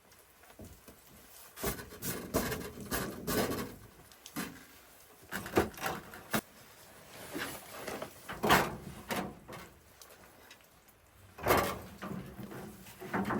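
Irregular knocks and scrapes in short clusters with quiet gaps between, the loudest knocks about eight and eleven seconds in.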